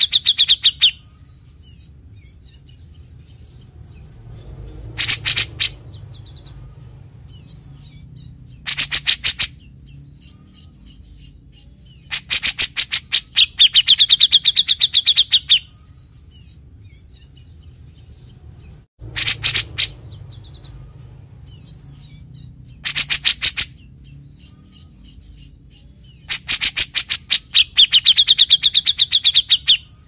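Cucak jenggot (grey-cheeked bulbul) giving its fast rattling 'mbeset' call. The bursts of rapid clicking trill come in two lengths: short ones of under a second and longer ones of about three seconds, seven in all. A faint low hum runs between the bursts.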